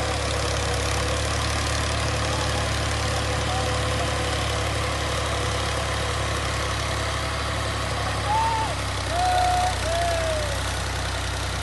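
Farm machinery engine idling steadily with a deep, even hum. A few short rising-and-falling calls sound over it near the end.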